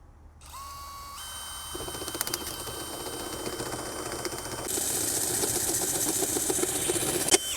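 Power drill spinning up with a rising whine, then running steadily while a step drill bit grinds and chatters its way through the mower's panel to cut a 7/8-inch switch hole. The cutting gets louder about halfway through, and the drill stops abruptly near the end.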